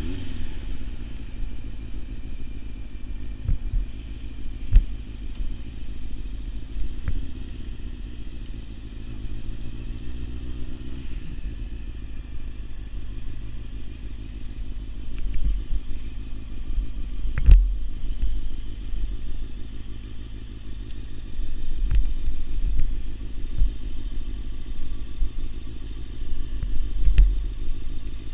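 Motorcycle engine running while riding, its note rising and falling in the first ten seconds or so. A few sharp knocks break in, the loudest about two-thirds of the way through.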